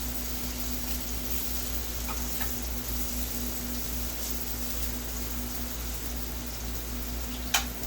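Small clicks of parts and tools being handled on a workbench, a couple of faint ones about two seconds in and a sharper one near the end, over a steady low electrical hum and hiss.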